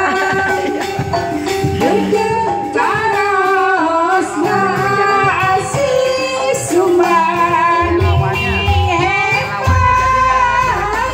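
Music with a woman singing a high, wavering melody full of pitch slides, over instrumental backing.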